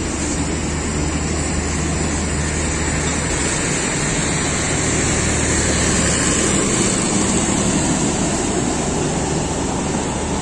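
Passenger coaches of a departing express train rolling slowly past: steady rumble and wheel-on-rail noise. It grows a little louder about two-thirds of the way through as the rear power van, which carries the train's diesel generators, goes by.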